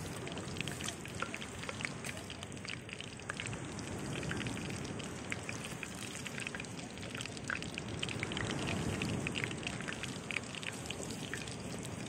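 Red mullet pieces deep-frying in a pot of hot oil, sizzling with a dense, irregular crackle, over a low steady rush.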